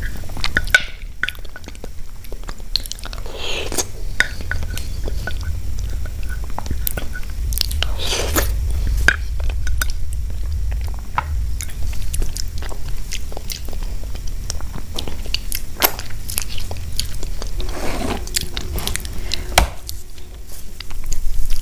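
Close-miked eating: a plastic spoon scraping and clicking against a glass dish, with chewing and slurping of soft kheer in between, over a low steady hum.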